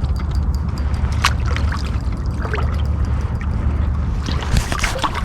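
Creek water running steadily over a low rumble, with a few short splashes as a hooked steelhead is played toward the bank.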